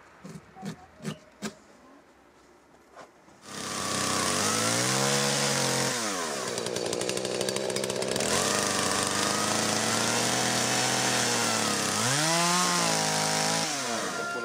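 McCulloch two-stroke chainsaw coming in about three and a half seconds in and revving up as it cuts through a small wooden board. It then drops back to idle and revs up again briefly near the end. Before it, a few sharp clicks.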